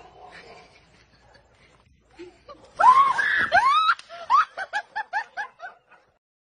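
A loud, high-pitched vocal shriek with arching pitch, then a fast run of short pitched pulses, about four a second, fading out.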